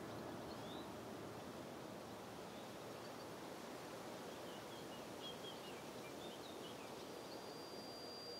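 Faint outdoor ambience: a steady hiss of background noise with a few scattered, distant bird chirps. A thin, high steady tone comes in near the end.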